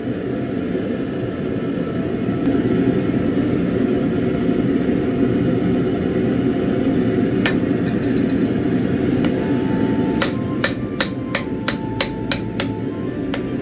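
Hammer strikes on an anvil: one blow about halfway through, then a quick run of about eight blows, roughly three a second, each leaving a ringing note. A steady roar runs underneath throughout.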